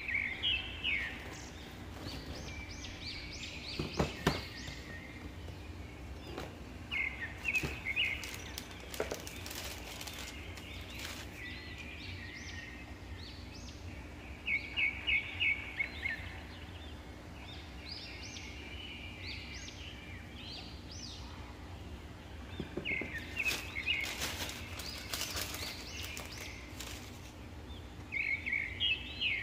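Small birds chirping in short clusters of quick high notes, over a faint steady hum. A few brief rustles of the shoebox's tissue paper being handled come about 9 seconds in and again around 24 seconds.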